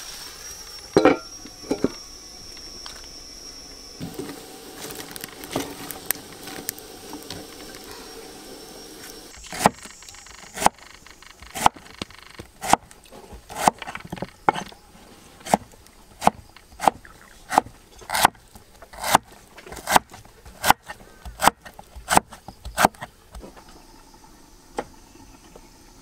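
Knife chopping on a wooden cutting board: a few scattered knocks at first, then steady strokes about once a second from about ten seconds in, quickening slightly before they stop a few seconds before the end.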